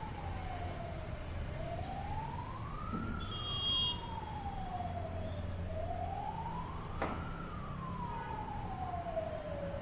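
A siren wailing slowly up and down, about one rise and fall every four seconds, over a steady low hum. A single knife knock on a plastic cutting board comes about seven seconds in.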